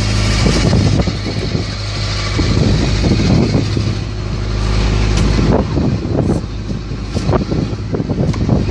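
Fishing boat's engine running with a steady low hum, under a clatter of knocks and thuds that come thicker from about halfway through.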